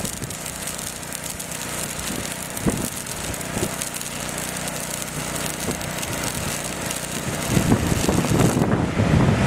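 Electric welding arc crackling and hissing steadily, with an engine running underneath. The arc stops near the end as wind starts buffeting the microphone.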